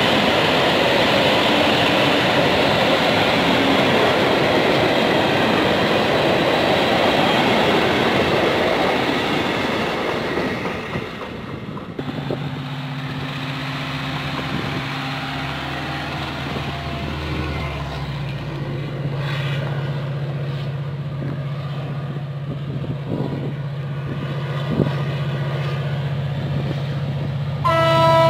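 A train passes with a loud, even rush of wheels on rail, which fades out after about ten seconds. A diesel locomotive's engine then runs at a steady low pitch with occasional knocks. Near the end, a train horn sounds loudly.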